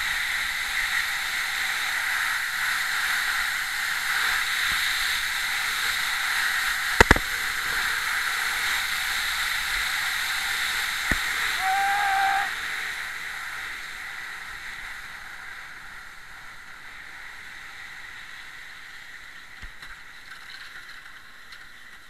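Bobsleigh runners hissing over the ice, with rushing wind on a helmet-mounted camera, a steady loud scraping rush. A sharp knock comes about seven seconds in and another near eleven seconds. The noise dies down steadily over the last ten seconds.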